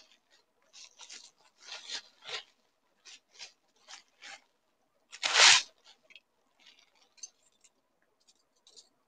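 Clear plastic wrapping crinkling and rustling in short bursts as a stainless steel collapsible steamer basket is unwrapped, with one much louder crackle of the plastic a little over five seconds in.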